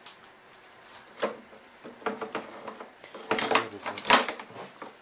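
Scattered clicks and plastic clatter of hands handling the shoulder straps and their clips on a Stihl backpack blower's frame, busiest in a run of knocks past the middle.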